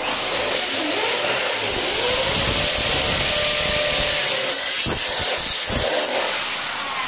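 Corded electric drill running at speed, drilling a hole through an aluminium door jamb, its motor whine steady under a dense grinding noise. A few low knocks come about five seconds in.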